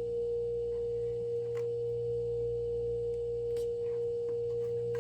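A steady single-pitch whine with a low hum beneath it, and two faint clicks.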